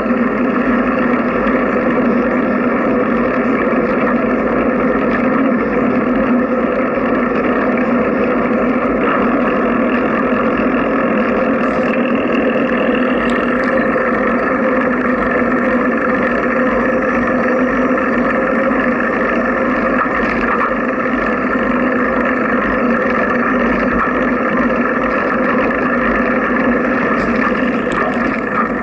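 Steady rolling drone of a bicycle riding on a paved trail, tyre and frame vibration carried to a bike-mounted camera.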